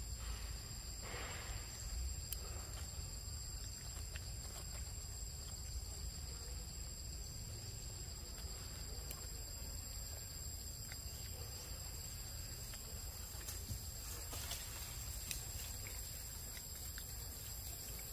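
Steady, high-pitched insect drone of several tones at once, with a low rumble underneath and a couple of faint rustles.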